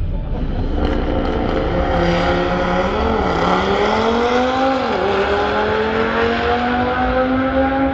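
Forced-induction drag car accelerating hard down the strip, its engine note climbing in pitch and dropping sharply at two gear shifts, about three and five seconds in, then climbing steadily again.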